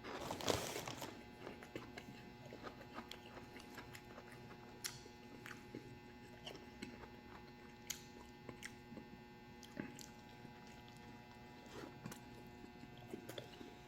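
Someone chewing food, faint chewing and mouth clicks scattered throughout, with a louder crunch about half a second in and a steady faint electrical hum underneath.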